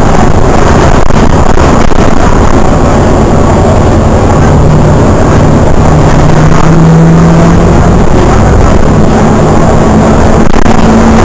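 Car driving along a city street, heard from the moving car: a loud, steady rush of road and wind noise with the engine's hum underneath, rising slightly in pitch about halfway through as the car picks up speed.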